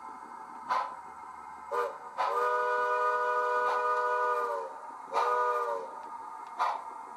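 Model steam locomotive's DCC sound decoder playing a steam whistle, a multi-note chime: a short toot, a long blast that sags in pitch as it stops, then another short toot. Underneath, slow exhaust chuffs come about every second and a half.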